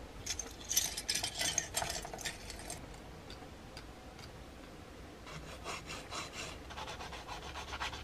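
A sanding sponge rubbed back and forth in quick strokes over a small plastic model-kit part, in two bouts with a pause of about two seconds between.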